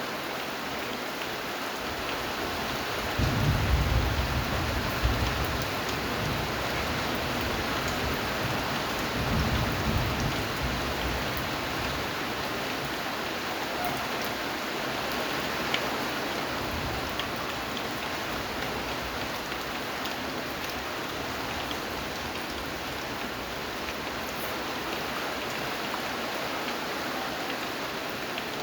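Steady rain falling and pattering on surfaces. A low rumble swells in a few seconds in and again about ten seconds in.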